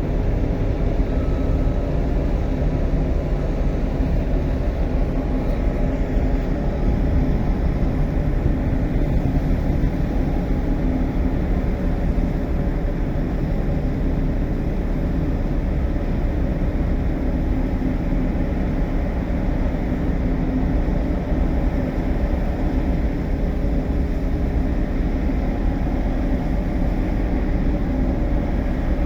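Marine engine running steadily during a ship's unberthing maneuver: a deep, even drone with a steady humming tone over it.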